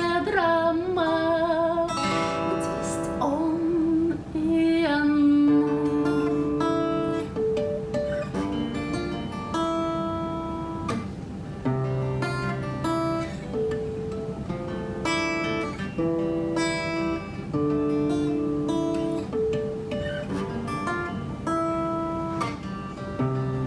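Music: acoustic guitar playing an instrumental passage of chords and picked notes. A held, wavering sung note ends about two seconds in.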